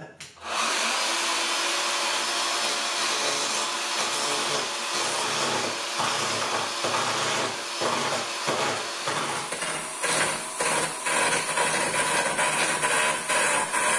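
Parkside cordless electric chainsaw starting up about half a second in and running steadily as its chain cuts into the edge of a burr elm slab.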